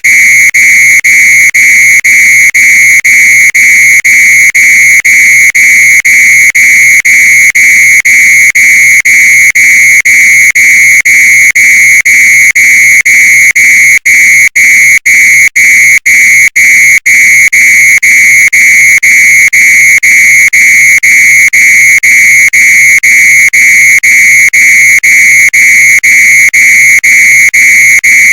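Fire alarm with a dirty sock on it, sounding a loud, shrill electronic tone that is broken by rapid, regular short gaps. About halfway through there are a few brief dropouts.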